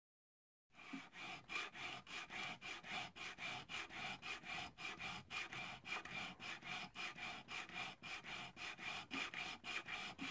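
Sandpaper rubbed by hand on an old Disston chisel's wooden handle, in quick back-and-forth strokes at about four a second, starting about a second in.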